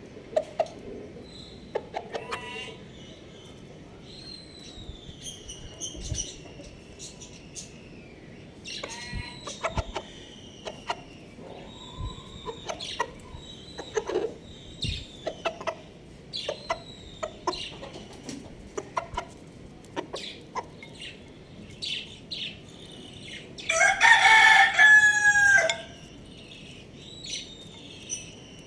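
Chickens calling: scattered clucks and short falling chirps throughout, then a rooster crows once, about two seconds long and the loudest sound, near the end.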